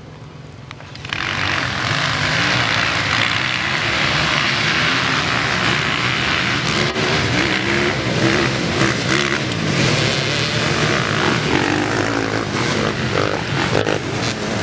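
A pack of dirt bikes launches at once about a second in, their engines jumping from a low idle to loud, hard revving. Many engines run together at high revs as the bikes race off, their pitches rising and falling.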